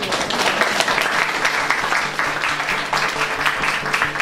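Audience applauding, with background music underneath.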